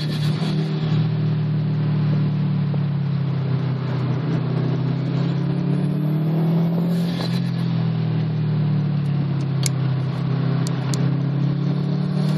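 2010 Subaru WRX's turbocharged flat-four engine running hard under load, heard from inside the cabin over road and wind noise. The revs climb steadily, ease back about seven seconds in, and climb again.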